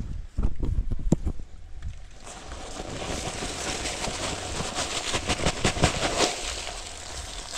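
A few knocks and thumps, then from about two seconds in a steady dry rustling and crackling.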